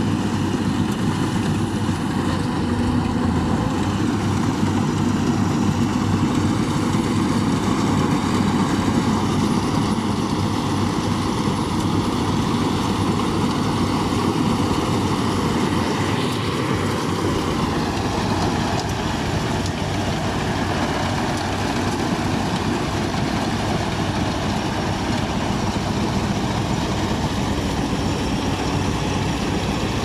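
Yanmar AW70V rice combine harvester running steadily while it cuts rice: its diesel engine together with the cutting and threshing machinery. The pitch shifts slightly a little past halfway.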